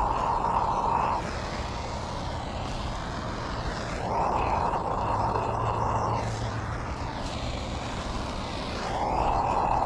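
Handheld gas torch flame hissing in stretches of about two seconds each, burning holes through woven landscape fabric: one burst ending about a second in, another starting around four seconds in, and a third starting near the end.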